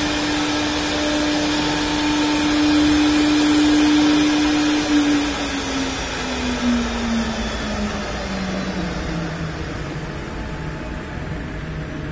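The 4.5 kW air-cooled spindle of a 1325 CNC wood router whines at a steady pitch over a rushing fan noise. From about five seconds in, the whine slowly falls in pitch as the spindle spins down at the end of the job.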